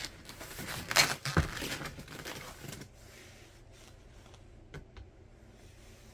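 Cardboard box and packaging being handled: rustling and scraping with two sharp knocks in the first couple of seconds, then quiet with a couple of small clicks.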